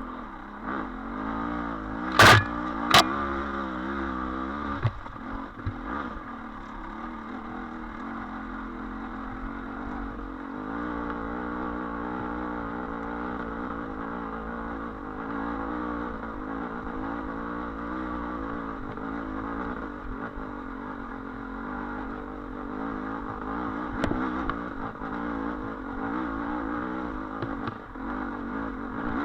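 Dirt bike engine held at high revs, its pitch wavering as the clutch is slipped to keep moving up a steep climb: the clutch is slowly burning away. Two sharp knocks about two and three seconds in.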